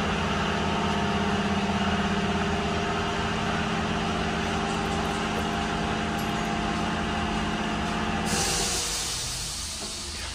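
Steady machine hum that cuts out about eight seconds in, as a loud hiss starts at the same moment.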